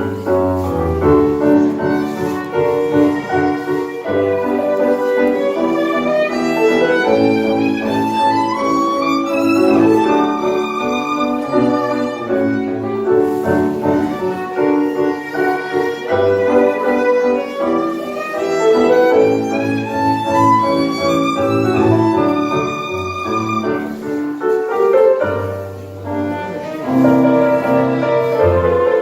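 Live tango music: a violin carrying the melody with sweeping runs up and down, over piano accompaniment.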